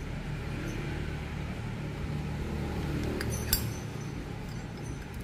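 A few sharp metallic clinks of steel-cased Zippo lighters being handled, a little past halfway and near the end, over a steady low rumble.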